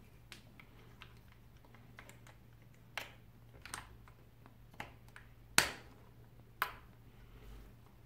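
Irregular sharp clicks and taps of a plastic mounting bracket being handled and fitted around a bicycle seat post, the loudest a little past halfway, over a faint steady low hum.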